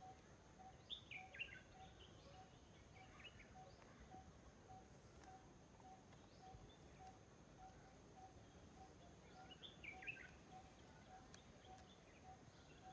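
Faint outdoor ambience: birds singing short chirping phrases about a second in and again near the end, over a steady repeated short note about two or three times a second and a thin steady high tone.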